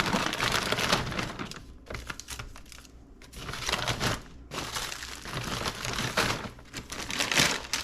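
Plastic bags and food packaging rustling and crinkling in irregular bursts as they are handled, with a lull about three seconds in.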